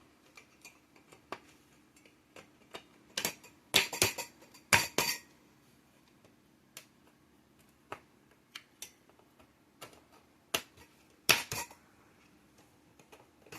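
Scattered clicks, clinks and knocks of mini greenhouse poles and shelf frames being fitted together by hand. There are two louder bunches of knocks, a few seconds in and again about ten to eleven seconds in.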